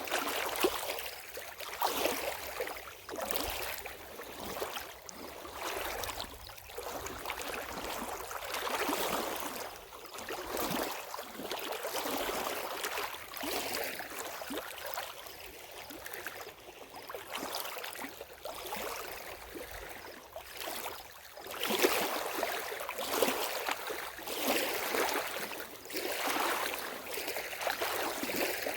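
Lake water lapping and splashing at the shore in irregular small surges every second or two, with a louder stretch of splashes in the last third.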